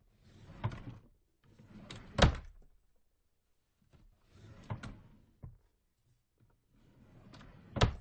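A small drawer slid open and shut twice. Each pull and push is a short sliding scrape of about a second, and each close ends in a sharp knock as the drawer hits home, the loudest about two seconds in and near the end.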